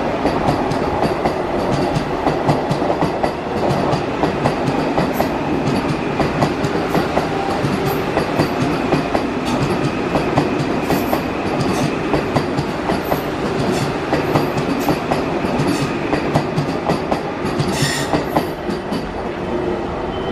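Vande Bharat Express electric multiple-unit train rolling along the platform, its wheels clicking over the rail joints in a fast, steady clatter. A brief sharp high-pitched sound cuts in near the end.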